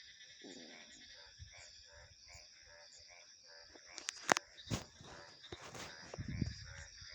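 A chorus of frogs calling in a regular pulsing rhythm, about two or three calls a second, over steady high-pitched insect and cricket trilling. Sharp, louder clicks come about four seconds in, and a low rumble follows near the end.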